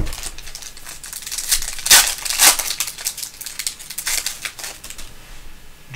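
Foil trading-card pack being torn open and crinkled by hand, a dense crackling of the foil wrapper, loudest about two seconds in.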